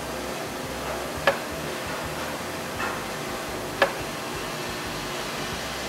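Sharp metallic ticks, four in a few seconds, as the engine's rotating assembly is turned over and a connecting rod bolt taps against a camshaft lobe, the sign of too little rod-to-camshaft clearance. A steady hiss runs underneath.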